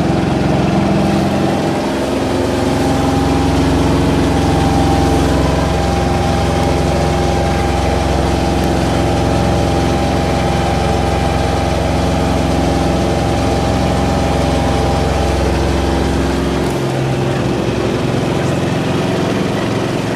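Small sailing yacht's engine running steadily under power, heard on board. Its low note changes about three-quarters of the way through.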